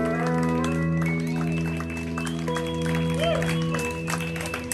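Live band holding a sustained closing chord while the audience claps.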